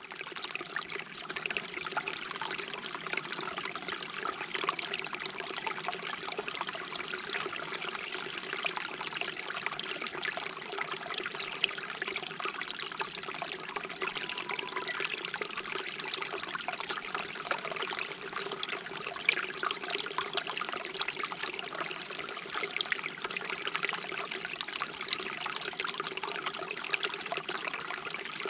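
Shallow stream babbling and trickling over stones in a steady, even flow.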